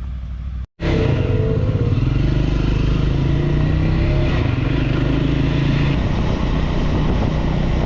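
Motorcycle engine running while riding, with its pitch wavering a little, over rushing wind noise. The sound cuts in loud after a brief break just under a second in.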